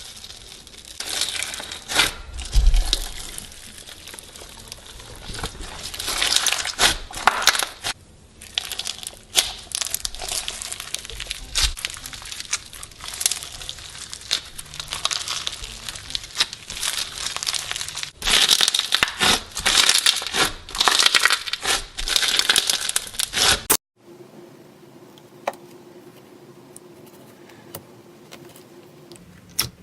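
Slime being squeezed, pressed and stretched by hand, giving dense crackling, crinkling and popping sounds. It cuts off suddenly near the end to a quieter stretch with a faint hum and a few soft clicks.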